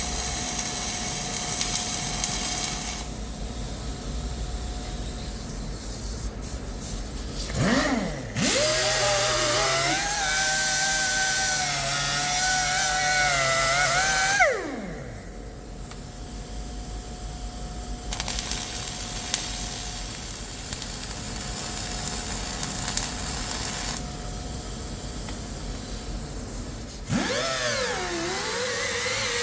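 A power tool's motor spinning up to a steady whine about eight seconds in, running for about six seconds, then winding down. It spins up again near the end, over a steady workshop hiss.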